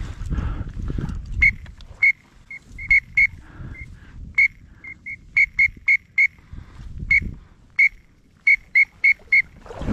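Duck call whistle blown in short, sharp, high peeps, about twenty of them in quick irregular runs, calling to ducks flying nearby. A low rumble sits underneath.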